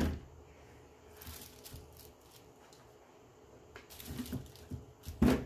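Objects being handled on a tabletop: a sharp knock at the start and another about five seconds in, with light rustling and small clicks between.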